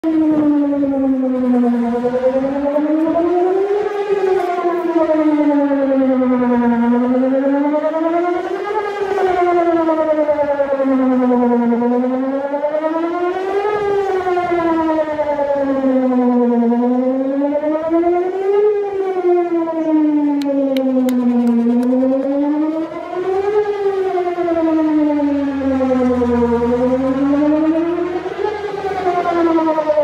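Whelen 4004 electronic outdoor warning siren sounding a wail in a test. Its pitch glides smoothly up and falls back about once every five seconds, with many overtones above the main note.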